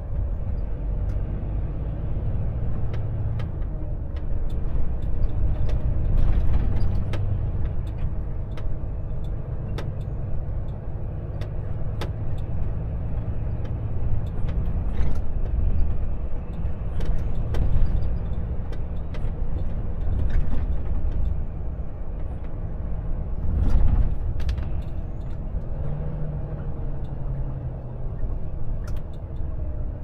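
Volvo FH truck driving, heard from the cab: a low engine drone with road noise that swells and eases several times as the engine pulls, with frequent short ticks and rattles on top.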